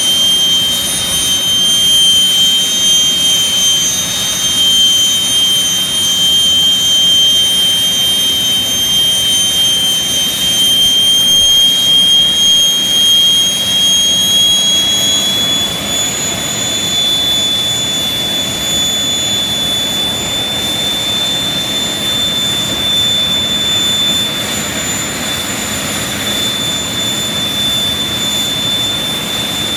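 Jet dragster's jet engine running loud and steady while the car sits stationary, a high whine over a roar. The whine steps up slightly in pitch twice about halfway through, then holds.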